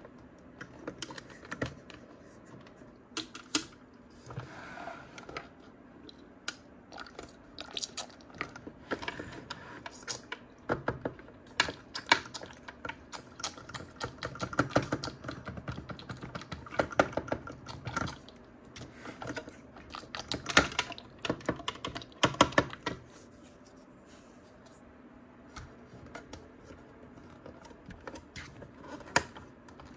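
Irregular clicking and tapping of hard plastic as hands handle a plastic Lightning McQueen bubble RC toy car and fit a plastic bubble-solution bottle into its rear, with a few short rustles. The clicks are thickest in the middle and sparser near the end.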